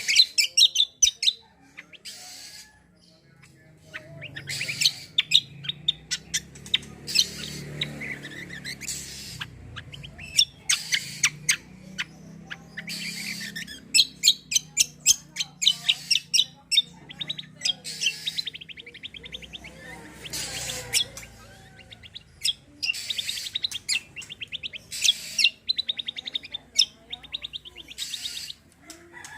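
Kecial kombo (cucak kombo) songbird singing in repeated bursts of rapid, sharp notes and fast trills, with short pauses between phrases.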